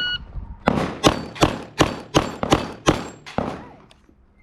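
Electronic shot timer beeps, then a Glock pistol fires eight shots in rapid succession, about three a second, a timed string in a pistol match.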